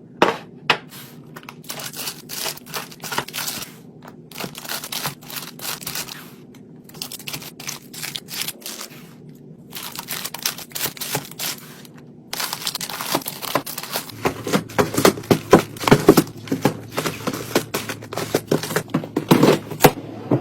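Plastic packaging crinkling and rustling as it is handled, with many sharp clicks and taps, over a low steady hum. The handling grows busier and louder about two-thirds of the way through.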